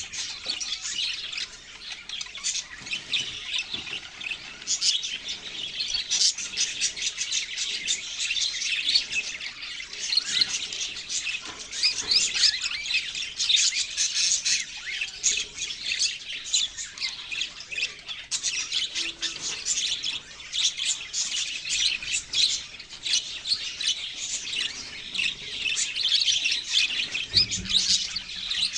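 Several budgerigars chirping and chattering, many short high calls overlapping without a break.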